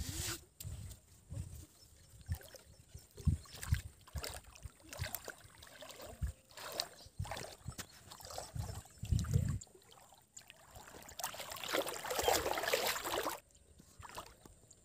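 Water splashing and sloshing as a person wades through shallow river water, with scattered knocks and low thumps. About eleven seconds in comes a longer, louder stretch of splashing lasting a couple of seconds.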